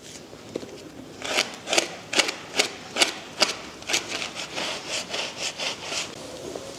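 Rhythmic scrubbing strokes, about two a second, followed by quicker, lighter strokes near the end.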